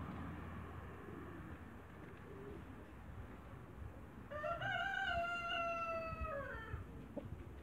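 A rooster crows once, starting about four seconds in: one drawn-out call of about two and a half seconds that rises at the start, holds, and drops away at the end.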